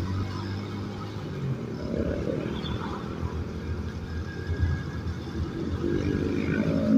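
Motorcycle riding in slow traffic: its engine runs steadily under road noise, with other vehicles' engines close by and one swelling louder near the end.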